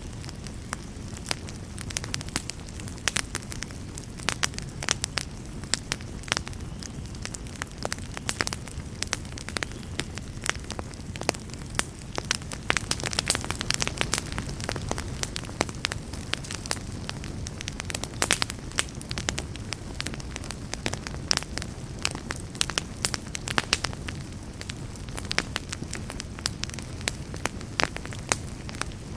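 Wood fire in a fireplace burning with frequent irregular crackles and pops over a soft low rumble.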